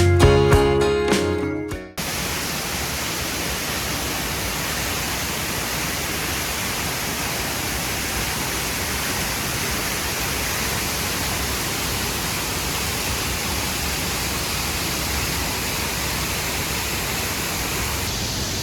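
Acoustic guitar music fading out about two seconds in, then the steady, even rush of a waterfall.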